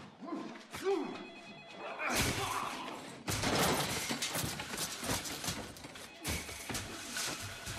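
Film fight sound effects of a hand-to-hand struggle: a series of thuds and impacts with scuffling and crashing, and short strained grunts in the first second.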